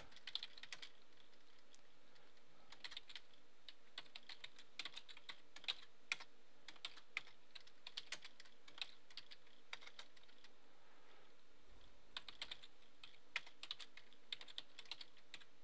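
Computer keyboard typing: faint, irregular keystrokes, some single and some in quick runs.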